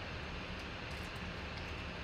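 Steady background hiss and hum, with a few faint clicks as a clear plastic card holder is handled.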